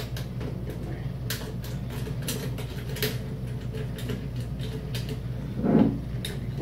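Scattered light metallic clicks and scrapes as a steel mounting bracket is pushed onto the back of a sheet-metal CNC control panel and its thumb screw is turned by hand, over a steady low hum.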